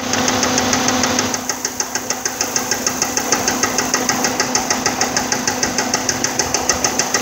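Volvo engine idling with a loud, rapid, evenly spaced knock from the bottom end. It was run with no oil after an oil change, and the knock is taken for ruined connecting-rod bearings, with the engine a write-off.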